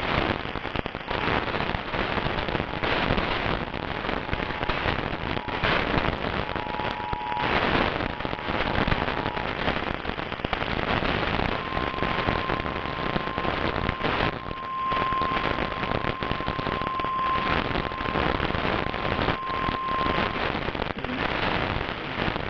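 Crackling, hissing radio static from a weak weather-radio reception, with a faint steady whistle for several seconds in the second half.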